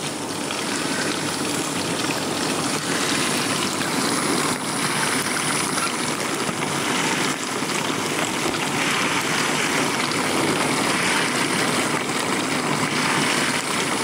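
Bosch dishwasher running a wash: its newly fitted combined heater and circulation pump running, with water spraying inside the tub, a steady rush of water.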